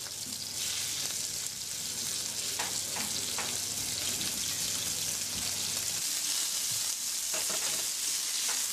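Hare fillets sizzling steadily in a hot frying pan as they are seared.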